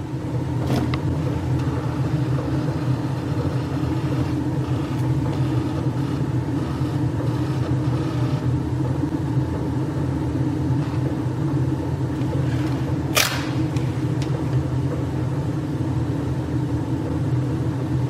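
A Weil-McLain gas-fired hot water boiler running at high fire: a steady low hum and rumble. A click comes just under a second in and a sharp tap about 13 seconds in.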